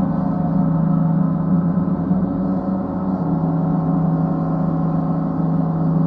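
Paiste planetary gongs ringing in a steady, sustained wash of many overlapping tones, with a strong low hum underneath.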